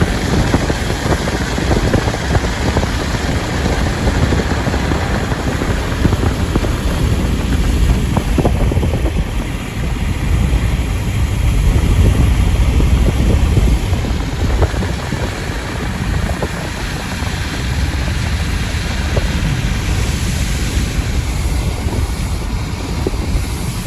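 Strong gusty wind buffeting the microphone: a low, noisy rumble that swells and eases, strongest about halfway through.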